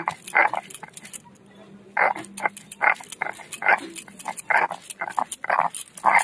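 Stone roller (nora) crushing boiled green jackfruit on a stone grinding slab (shil): rough rhythmic scraping strokes, about two to three a second from about two seconds in.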